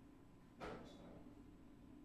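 Near silence: room tone, with one brief soft noise about half a second in.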